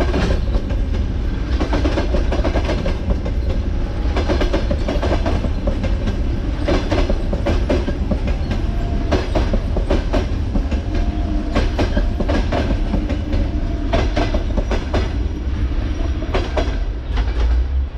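Passenger coaches of an express train rolling past, the wheels clattering over the rail joints and points in a steady run of clicks over a deep rumble. The sound eases off near the end as the last coach goes by.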